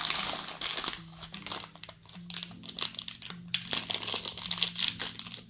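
A crinkly plastic candy wrapper being handled and torn open, giving a dense run of crackles. They are busiest at the start and again in the second half.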